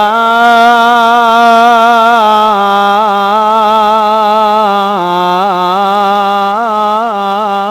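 A man's voice holding one long chanted note in a melodic Arabic praise recitation, steady at first, then turning into quick ornamental wavers for the last few seconds.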